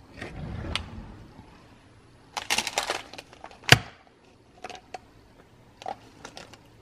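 Kitchen drawer pulled open, then plastic vitamin bottles rattling and clattering as one is taken out, with a sharp knock about midway and a few light ticks after.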